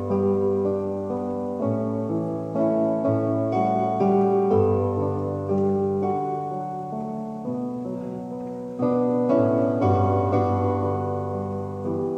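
Piano playing a slow hymn-like tune in sustained chords, with a new chord struck every second or two over held bass notes.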